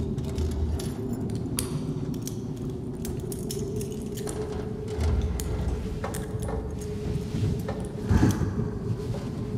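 A film soundtrack with a steady low hum under scattered small metallic clinks and rattles, and heavier low thuds about five and eight seconds in.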